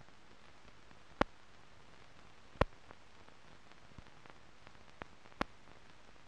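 Steady faint hiss with sharp clicks, three loud ones about a second, two and a half and five and a half seconds in, plus a few fainter ticks: the empty soundtrack noise of a silent film transfer.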